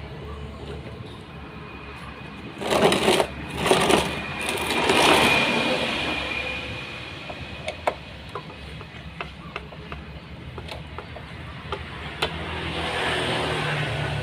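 Washing machine parts being handled during disassembly: two loud knocks or scrapes a few seconds in, a longer scraping swell after them, scattered sharp clicks, and more scraping near the end, over a steady low hum.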